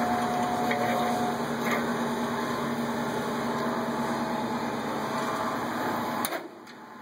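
Steady mechanical hum with a low held tone and a few faint handling clicks, which cuts off abruptly near the end.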